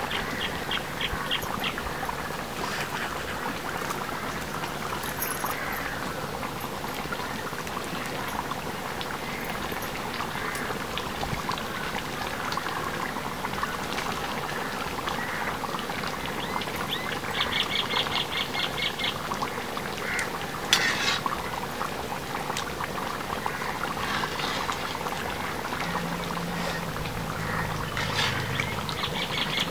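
Lamb curry bubbling and sizzling in a large iron kadai, with a perforated metal ladle stirring and scraping the pan. A rapid chirping trill sounds twice, about halfway through and again near the end.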